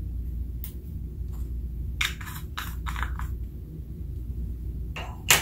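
Small clicks and scrapes of a plastic spatula and a plastic eyeshadow pot being handled, with a cluster of scrapes about two to three seconds in and a sharp click near the end, over a steady low hum.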